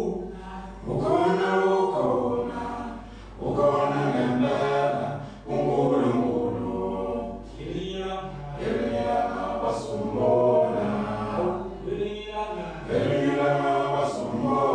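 Nine-man male a cappella choir singing isicathamiya in close harmony, with low bass notes held under the higher voices. The singing comes in swelling phrases that break off briefly every two to three seconds.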